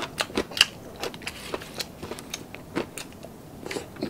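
Crunching of a person chewing a mouthful of crispy deep-fried food: an irregular run of short, crisp crackles, several a second.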